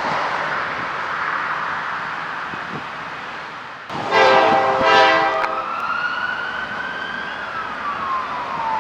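Steady running noise of a diesel freight train pulling away. About four seconds in comes a short blast of a horn. After it a siren wails slowly, rising and then falling in pitch.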